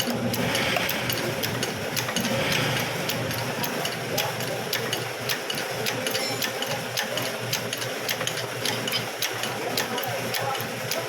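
A machine running steadily, with a constant hum and a regular clicking a few times a second.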